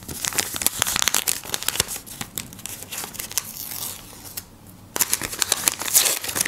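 A handmade paper surprise packet being handled and unfolded, its paper crinkling and rustling. A short quieter spell comes about four seconds in, then the crinkling grows louder as the packet is pulled open.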